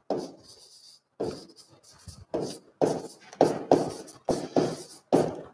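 A stylus tapping and scraping on the glass of an interactive display panel as a word is written, about ten short strokes at uneven spacing.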